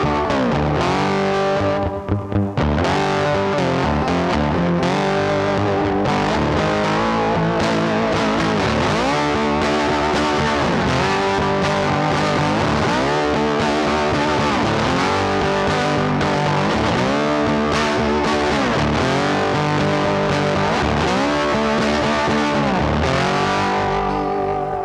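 Rock music with distorted electric guitar playing a repeating riff with sliding, bending notes; no vocals in this stretch.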